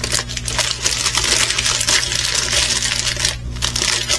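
Plastic packaging crinkling and rustling as it is handled, a dense run of small crackles and clicks.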